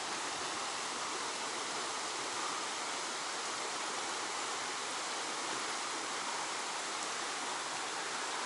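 Fast current rushing through a narrow rock channel, with small rapids of white water: a steady, even rush of water.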